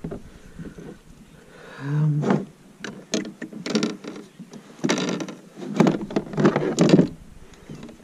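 A freshly landed bass in a mesh landing net, scuffing and knocking against the plastic hull of a fishing kayak as the net is brought aboard: a run of irregular rustling scrapes and knocks, thickest around five and seven seconds in. A short low grunt comes about two seconds in.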